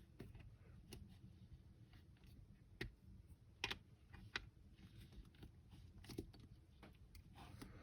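Near silence broken by a few faint, scattered clicks of a metal hex key working an M4 screw into a helmet's Hans anchor post.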